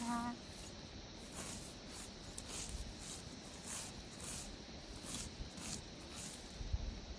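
Hand sickle cutting grass: faint, repeated swishing strokes about one or two a second as handfuls are grabbed and sliced. A brief high call sounds right at the start, and a dull thump comes near the end.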